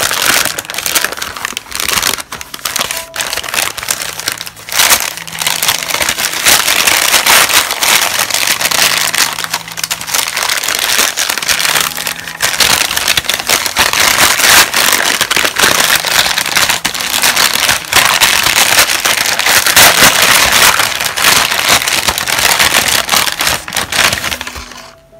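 Brown kraft wrapping paper crinkling and crumpling loudly as a package is unwrapped by hand, with a few brief pauses; it dies away just before the end.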